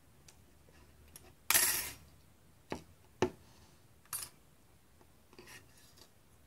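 Thin etched-steel sheet and small metal parts of a Metal Earth model kit clinking and rattling on a tabletop as they are handled. There is a brief loud rattle about a second and a half in, then three sharp metallic taps and a few softer ticks.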